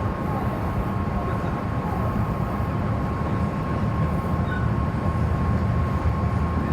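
Inside a halted Meitetsu electric train car: a steady low rumble and hum with a constant thin whine, as the train stands stopped in typhoon wind and rain.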